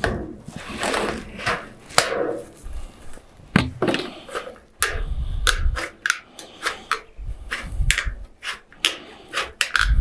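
Hand metal snips cutting painted sheet-metal roofing: a run of sharp crunching snips as the blades close, coming about two to three a second in the second half. This is the final trimming cut along the marked line, around a curve.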